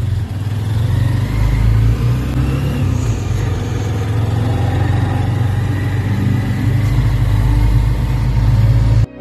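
Motorcycle engine of a Philippine tricycle (motorcycle with sidecar) running steadily with a low drone while riding, heard from aboard with road noise.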